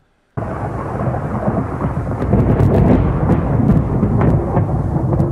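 Thunderstorm: rolling thunder over steady rain, starting abruptly about half a second in, with a few sharp crackles through the middle.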